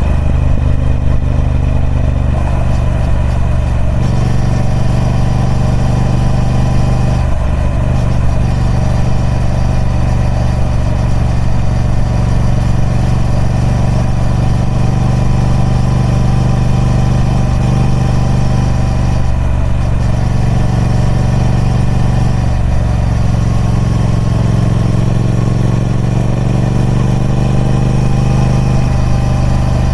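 A Triumph Speed Twin 1200's 270-degree parallel-twin engine running through its stock exhaust, steady and loud. It drops briefly about 2, 7 and 19 seconds in, and its pitch rises slowly over the last several seconds.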